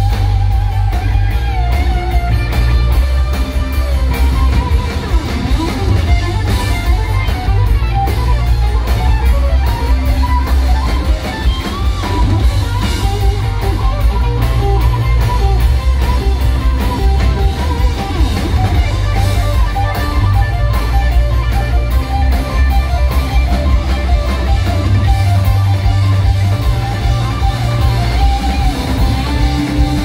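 Live rock band playing an instrumental passage: an electric lead guitar line over heavy bass and drums, with no vocals.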